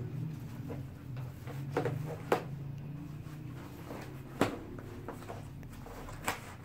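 Hard plastic pads of a kids' armour jacket clacking and rustling as it is handled, with three sharp knocks about two seconds apart, over a low steady hum.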